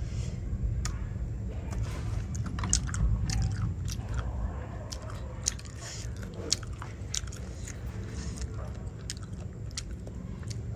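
A person eating boiled snails close to the microphone: chewing and biting, with many short sharp clicks scattered throughout.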